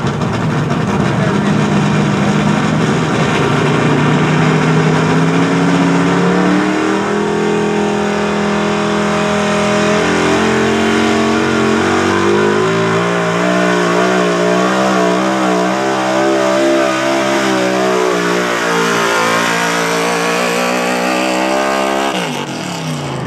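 Big-block V8 of a Ford pickup pull truck at full throttle, dragging a weight-transfer sled. Its revs climb in several steps through the run, then the engine note falls steeply near the end as it comes off the throttle.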